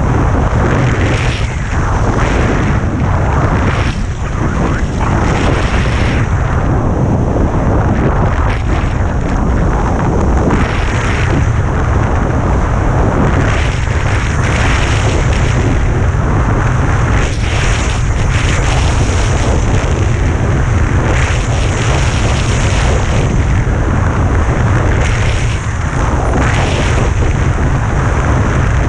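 Wind buffeting the microphone of a camera carried by a skier on a fast descent, a loud low rumble. Over it the hiss and scrape of skis on groomed snow swells and fades with the turns.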